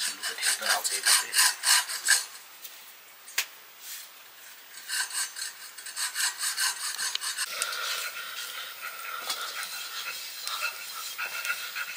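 Rhythmic scraping strokes, about four a second, in two runs with a quieter stretch between them.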